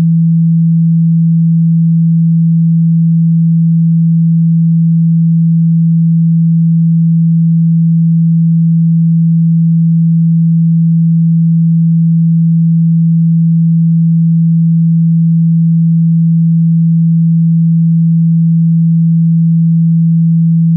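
A steady, loud 165 Hz pure sine-wave test tone, one unwavering low hum with no other sound. It is the kind of tone played at full volume through a phone's speaker to shake water and dust out of it.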